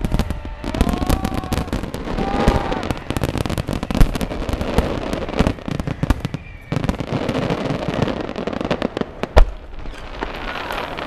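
Aerial fireworks display: shells bursting overhead in dense volleys of booms and rapid crackling, with a short lull about six and a half seconds in. Two bangs stand out as the sharpest and loudest, about four seconds in and about nine seconds in.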